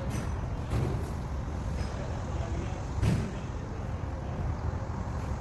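Steady low rumble of a heavy engine running, likely the lifting crane's engine, with a short knock about a second in and a louder thump about three seconds in.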